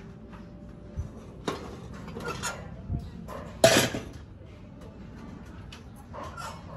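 A few light metallic clinks and knocks from a pot and the stove's metal parts, the loudest about halfway through, over a faint steady background from the gas stove, whose left burner is still lit.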